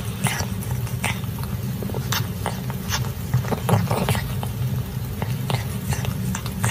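Kitten licking paste from the nozzle of a tube, a run of short, irregular wet tongue clicks over a steady low rumble.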